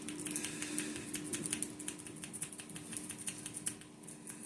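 Wave rake lock pick being worked in and out of a Master Lock padlock's keyway under a tension wrench: a quick, irregular run of light metallic clicks and scrapes as the rake rattles over the pin tumblers.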